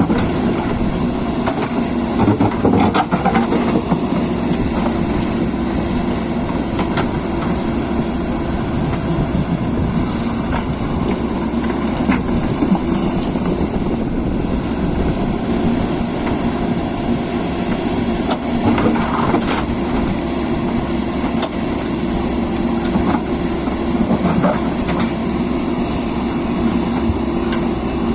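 Heavy diesel earthmoving machine running steadily under load, with scattered sharp clanks and knocks from the work.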